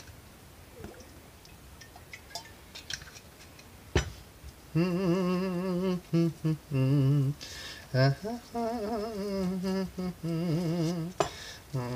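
A sharp click about four seconds in, then a man humming a wordless tune in short held notes with a wavering pitch.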